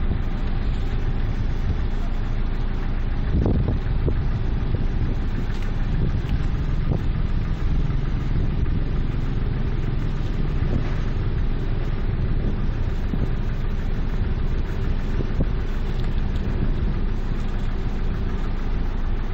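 A steady low engine hum, like an engine idling, with an even rumble underneath and no change in pace.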